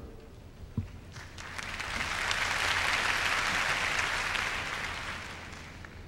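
Audience applauding, swelling about a second in and dying away near the end.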